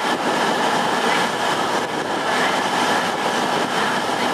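Diesel-hauled train drawing away, with the Class 50 locomotive 50007 on the rear; a steady, even rumble of engine and wheels.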